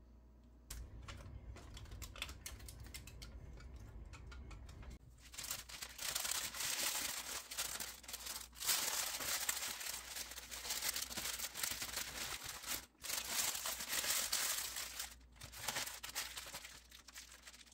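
Parchment paper crinkling as it is folded and scrunched around a rack of sauced ribs: light rustling and clicks at first, then loud, dense crinkling from about five seconds in, with short pauses, fading near the end.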